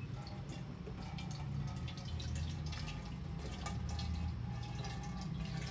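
Water poured from a plastic jug splashing and dripping irregularly off a waterproof riding glove into a cardboard box, over a low steady hum.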